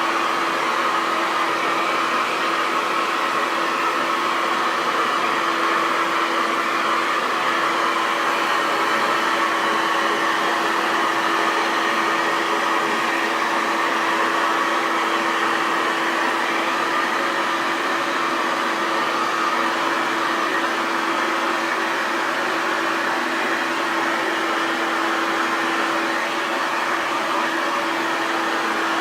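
Hair dryer running steadily: a constant rush of blown air over a steady motor hum, with no change in speed.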